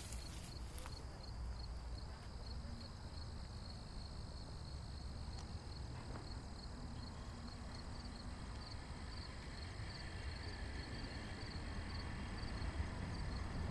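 Insects chirping steadily in a high, evenly pulsing trill over a low outdoor rumble, with a few light clicks near the start.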